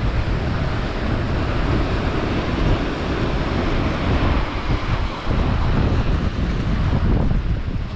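Wind buffeting the microphone over surf washing across a rocky shore ledge, a steady rushing noise with a heavy low rumble.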